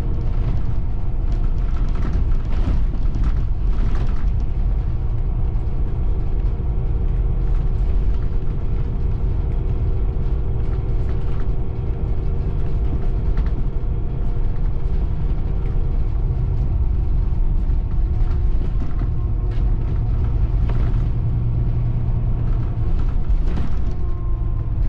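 Interior cabin noise of a Caetano Levante coach on the move: a steady low drone of engine and road, with occasional light knocks and rattles from the fittings.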